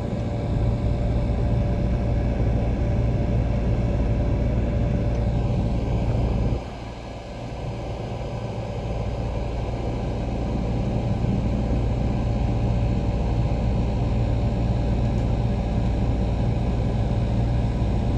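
Tractor engine running steadily with a low drone. About a third of the way in the sound drops suddenly, then gradually builds back up over several seconds.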